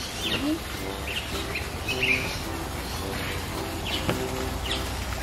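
Birds chirping and calling, many short quick chirps, over soft background music with short repeated notes.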